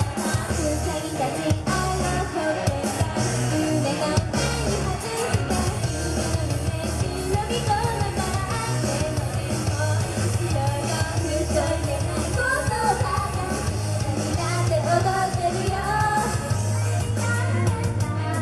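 Japanese idol-pop song performed live: group vocals singing over loud pop-rock music with a steady beat and heavy bass.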